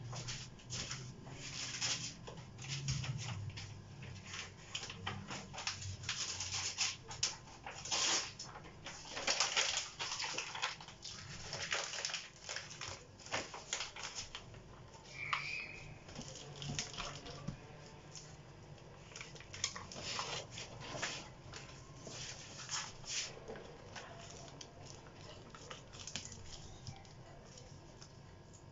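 Glossy magazine paper crinkling and rustling in irregular crackles as it is crumpled and pressed onto wet spray paint to texture it. A short high squeak comes about halfway through.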